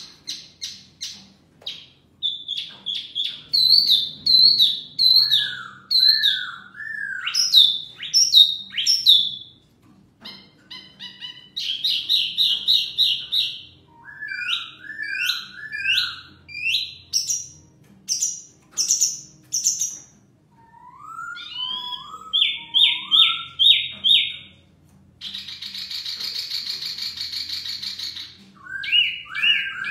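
Caged wambi mini (mini hwamei) singing in a varied, loud stream of phrases: fast chip series, repeated sharp falling whistles and lower curving notes, trading phrases with a poksay laughingthrush. About three seconds of harsh buzzing chatter comes near the end.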